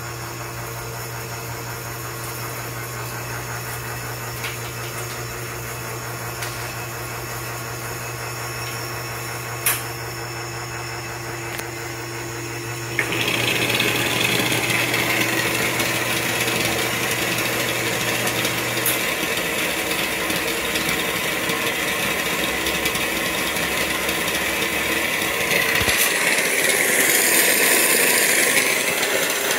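Lavazza LB 4710 espresso machine humming steadily. About 13 seconds in, water starts running from the group heads and splashing onto the stainless drip tray, much louder than the hum, as the groups are flushed during a test run.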